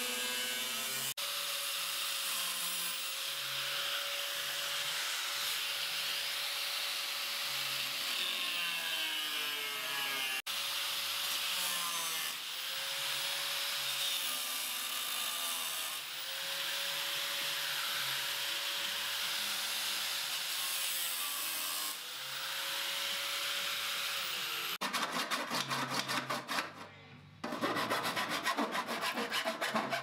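Angle grinder with a cutting disc running under load as it cuts a hole through a sheet-metal control-panel enclosure: a steady grinding hiss over a held motor whine, broken off briefly a few times. Near the end a hand file rasps rapidly back and forth across the cut edge.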